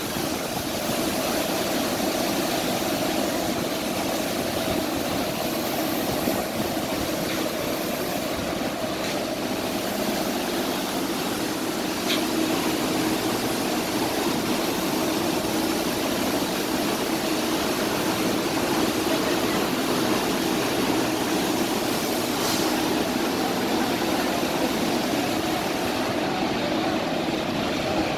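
Cotton ginning factory machinery running: a steady drone with a constant low hum that holds level throughout.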